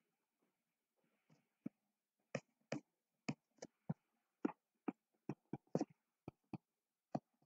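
Stylus tapping on a tablet screen while handwriting: sharp, irregular clicks, about two a second.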